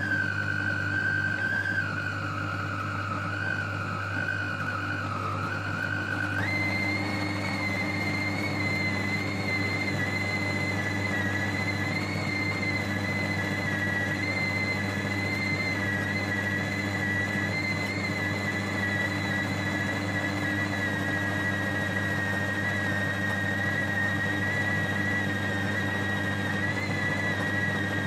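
Food processor motor running steadily, grinding pork with starch into a sticky paste for chả lụa, with a low hum and a high whine that steps up in pitch about six seconds in and then holds. The pork is being ground once more because it is not yet fully smooth.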